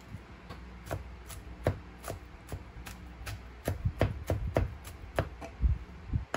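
Chef's knife chopping garlic cloves on a wooden cutting board: irregular knocks of the blade on the board, sparse at first, then faster and louder in the second half.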